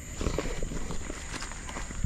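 Footsteps on a dirt forest trail: irregular crunching steps on soil and leaf litter, several a second, over a steady high-pitched whine.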